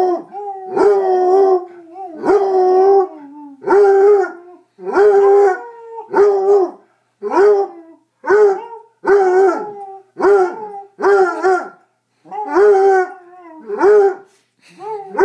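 Basset hound howling over and over, about a dozen short howls roughly one a second, each holding one pitch and dropping at the end.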